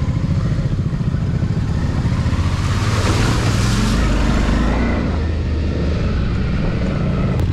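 Motorcycle engine running at steady low revs while riding, with a rush of noise that swells about three seconds in and fades about two seconds later.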